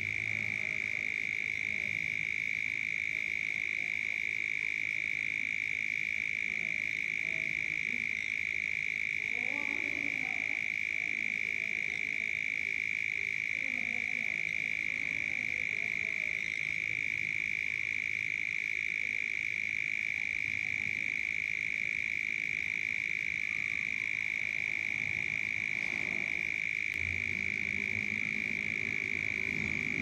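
Night chorus of frogs: a continuous high-pitched trill holds steady throughout, while lower croaking calls come and go, thickest about ten seconds in and again near the end.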